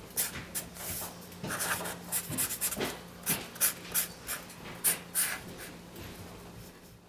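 Felt-tip marker drawing on paper: a quick, irregular run of scratchy strokes that eases off about five and a half seconds in, over a faint steady hum.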